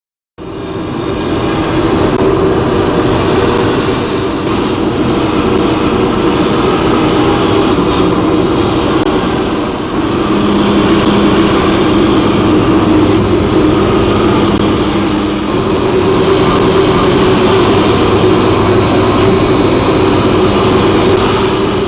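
CNC router spindle running at speed and milling foam: a loud, steady whir with a high whine over it, shifting slightly in tone about halfway through.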